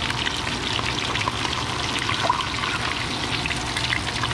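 Hot oil sizzling and crackling steadily around whole floured menpachi (soldierfish) shallow-frying in a pan.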